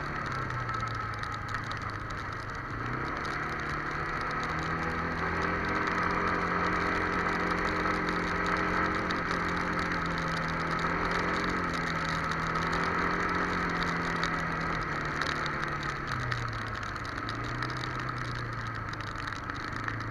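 Kymco MXU 300 quad's single-cylinder four-stroke engine running at changing speed. Its pitch drops just at the start, climbs back about three seconds in, holds steady for a long stretch, then settles lower near the end.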